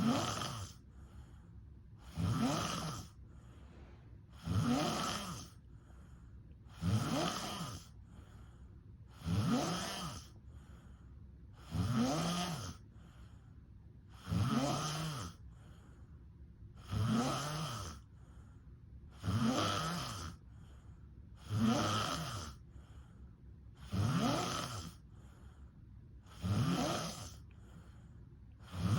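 A sleeping person snoring steadily. There is one rasping snore about every two and a half seconds, each lasting about a second with a pitch that slides, and quiet breathing between them.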